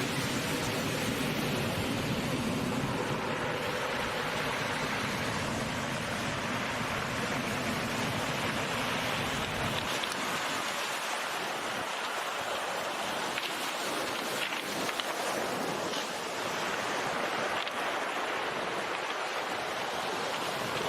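Steady rushing noise of water, like surf or a stream, with no voices. The deep rumble underneath drops away about halfway through, and a few faint clicks follow.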